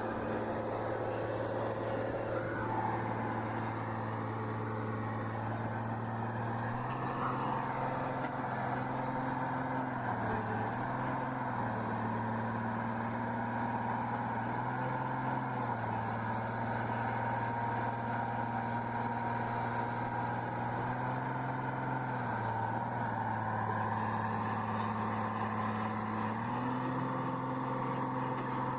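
A heavy vehicle engine running steadily, its speed stepping up and down several times.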